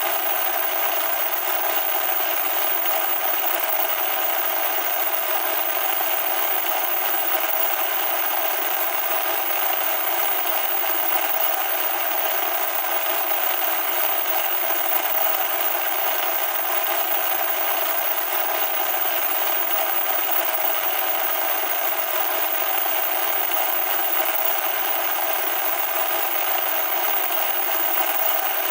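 Loud, steady static hiss with no bass and no change in level.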